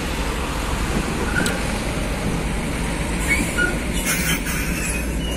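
Hino tractor unit pulling an empty skeletal container trailer past at low speed: diesel engine running under the rattle of the bare steel trailer chassis, with a couple of short squeaks and a few knocks about four seconds in.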